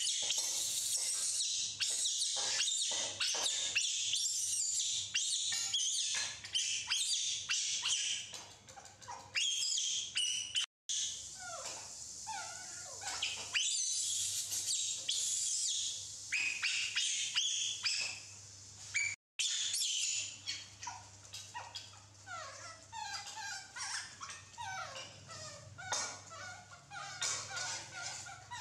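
Baby macaques squeaking and chirping over and over, many short high calls that mostly fall in pitch, over a faint steady low hum.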